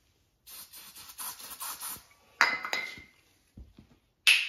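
Aerosol can of Gunk Liquid Fire ether starting fluid hissing in short spray blasts into the intake of a two-stroke mower engine. About halfway through comes a ringing metallic clink, like the can set down on concrete, and near the end two sharp knocks.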